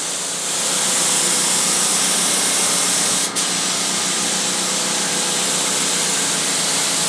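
Primer being sprayed in a steady hiss, with one brief break in the spray about three seconds in.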